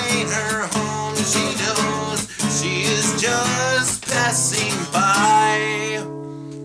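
Closing bars of a rock song: guitars under a wavering lead melody line, ending on a final chord left ringing out near the end.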